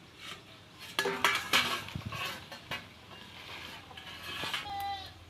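Metal cooking utensils clinking and scraping against a pot, with several sharp knocks in the first half.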